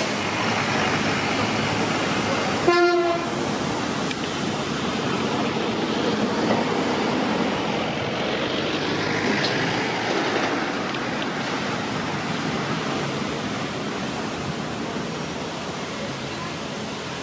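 Steady street traffic noise with one short horn toot about three seconds in.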